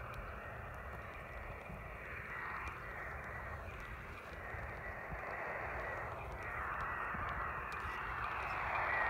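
Amateur radio receiver hiss, narrow-band like a handheld's speaker, with a faint wavering high whistle near the top of the band, getting louder toward the end.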